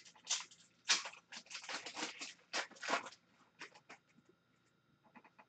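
Hockey card pack wrapper being torn open and crinkled by hand: a run of crackling rustles for about three seconds, then a few faint ticks as the cards are handled.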